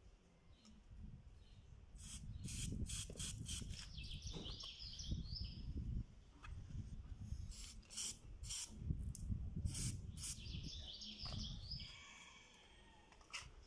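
Brake-cleaner aerosol can let off in a run of short hissing puffs, in two clusters with a single puff near the end. Birds chirp in between, over a low rumble.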